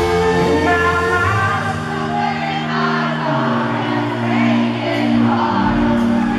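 Live band playing a country-rock song, with electric guitar, held chords and singing, heard from the audience in a large arena. The deep bass thins out for a couple of seconds in the middle and comes back near the end.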